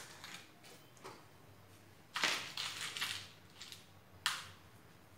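Small metal screws clinking and rattling as a hand rummages through them to pick out a different one, with a longer burst of rattling about two seconds in and a sharp click a little after four seconds.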